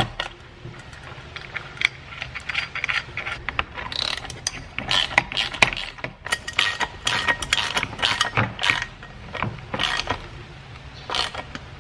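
Hand socket ratchet clicking in irregular runs as it cranks down nylon-insert lock nuts on bolts.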